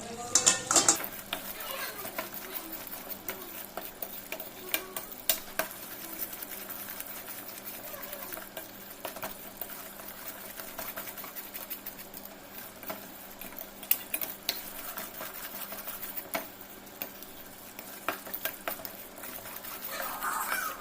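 Spoon stirring and scraping rajgira (amaranth) flour as it roasts in ghee in a pan, with frequent sharp clicks of the spoon against the pan over a faint sizzle.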